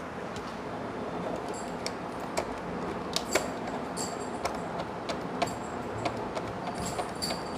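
Irregular small clicks and metallic ticks with brief high ringing, from a monitor VGA cable's metal connector being handled and plugged in, over a steady hiss.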